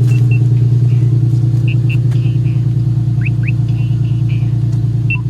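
Infiniti G37's 3.7-litre V6 idling steadily on fresh oil, just after an oil change.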